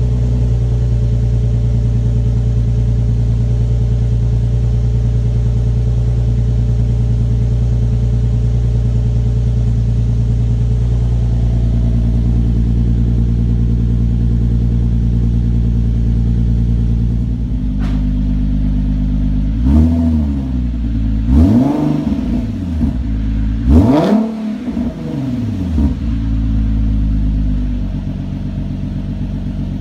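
Infiniti Q50's VQ37 V6 running through a 2.5-inch Optimus Performance catback exhaust with X-pipe and Tanabe Medallion axle-back mufflers, idling steadily on a cold start. About two-thirds of the way through, the engine is revved three times in quick succession. Each rev rises and falls in pitch before the engine settles back to idle.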